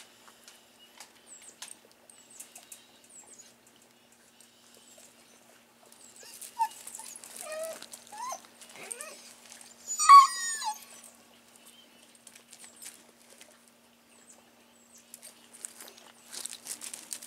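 Dogs greeting with whines and yips: a string of rising and falling whines about six seconds in builds to one loud, sharp yelp about ten seconds in. Light clicks and scuffs of paws on gravel come and go around them.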